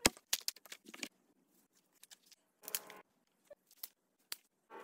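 Dry wooden sticks and branches being snapped and broken: a quick run of sharp cracks in the first second, then scattered single snaps and clicks.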